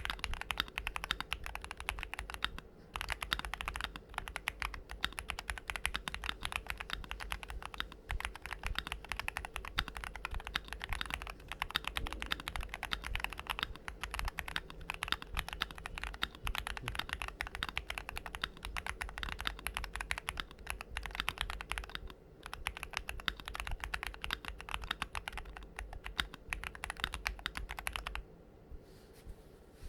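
Typing on a Keychron Q1 mechanical keyboard fitted with lubed and filmed JWK Black v2 linear switches on an FR4 plate, with no foam inside. Fast, continuous keystrokes, with brief pauses about three seconds in and about two-thirds of the way through; the typing stops shortly before the end.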